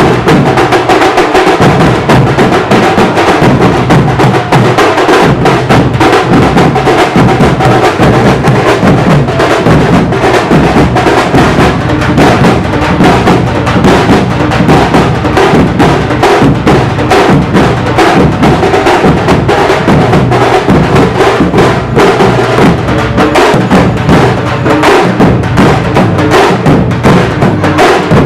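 A group of tamte frame drums, struck with sticks, playing a fast, loud, unbroken rhythm of dense strokes.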